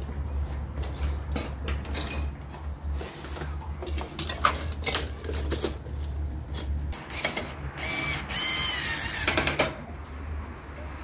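Metal hand tools clinking and rattling as someone rummages through an open tool case, with repeated small knocks, and a squeaky scrape near the end.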